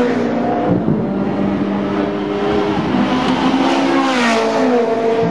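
Ferrari sports car engine running, its revs dropping just after the start and climbing again about three to four seconds in.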